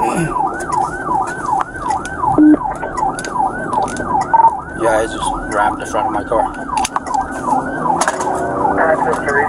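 Police car siren on yelp, heard from inside the patrol car: a rapid rising-and-falling wail about three times a second. About eight seconds in it switches to a faster, choppier warble.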